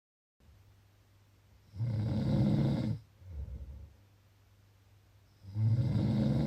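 Snoring: two loud snores about four seconds apart, each followed by a softer, lower breath out, over a steady low hum. The sound cuts out completely for a moment at the very start.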